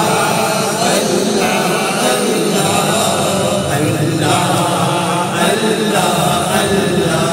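Devotional Islamic chanting by male voices, a steady flowing chant with no break.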